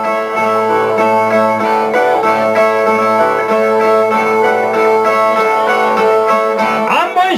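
Brazilian viola, a ten-string guitar, played alone in the break between sung verses of a repente, with steady plucked notes. A man's singing voice comes back in near the end.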